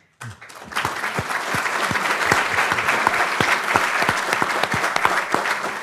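People applauding: many hands clapping, swelling within the first second and then holding steady.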